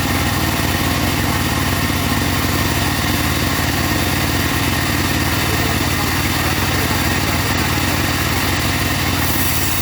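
Engine powering a portable sawmill, running steadily at constant speed.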